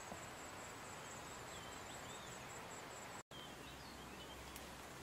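Faint outdoor ambience in scrubland: a steady high-pitched insect drone with a few faint bird chirps. The sound drops out for an instant just past three seconds in, and the drone does not return after that.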